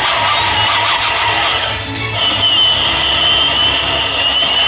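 Railway turntable rotating, its end-carriage wheel squealing on the circular rail around the pit in high wavering tones over a steady low rumble, briefly easing about two seconds in.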